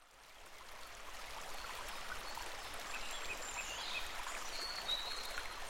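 A sound-effect stream of flowing water fades in and then runs steadily, with a few faint, high bird chirps over it.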